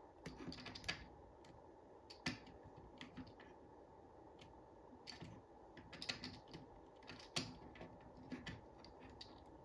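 Faint, irregular small clicks and scratches of fingers and a small hand tool working at the thin cable of a Lego Powered Up train motor, teasing its plus and minus wires apart.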